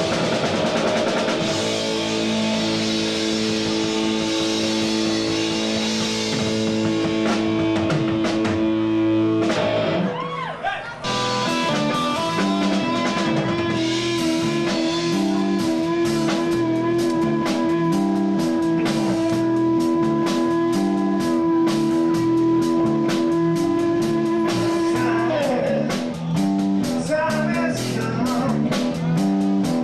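Live rock trio playing: electric guitar, bass guitar and a Yamaha drum kit, with held guitar notes over a steady drum beat. The playing drops out briefly about ten seconds in, then the band comes back in.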